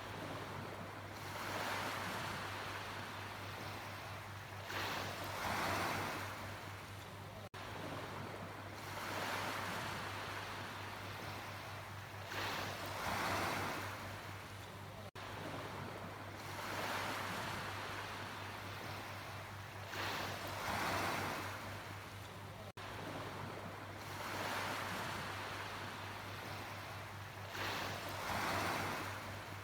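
Sea waves washing in, a surging hiss that swells and fades about every seven to eight seconds, with a steady low hum underneath.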